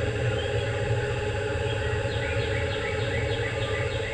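Steady low hum, with a rapid run of short high chirps, about four a second, starting about halfway through.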